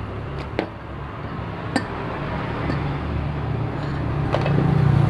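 A few sharp metallic clinks from parts and tools being handled, over a steady low engine rumble that grows louder near the end.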